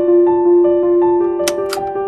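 Background music: a soft keyboard melody of sustained piano-like notes, with two brief crisp percussive hits about three quarters of the way through.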